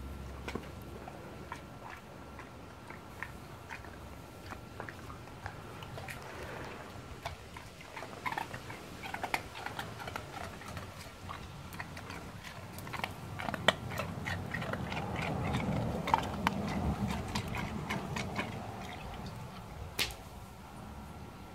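Bluetick coonhound making irregular wet mouth sounds, a string of clicks and smacks that grows busier in the second half.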